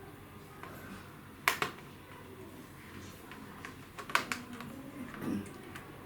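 Sharp plastic clicks and taps from a laptop's bottom cover being pried loose: two pairs of loud clicks a few seconds apart, with fainter ticks between.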